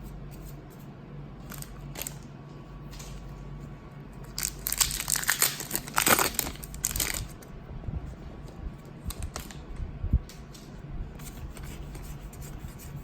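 A foil booster pack wrapper being torn open and crinkled, with the loudest tearing from about four and a half to seven seconds in. Light clicks of cards and packaging being handled come before and after it.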